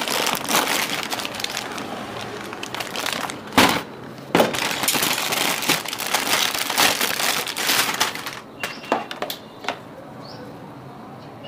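Plastic packaging of a new scooter brake cable crinkling and rustling as it is handled and opened, with two sharp snaps a few seconds in. The rustling stops about three-quarters of the way through.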